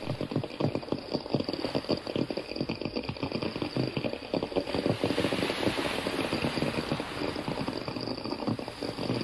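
Shallow stream water burbling and gurgling over rocks: a dense, irregular bubbling that keeps going without a break, with a faint steady high tone underneath.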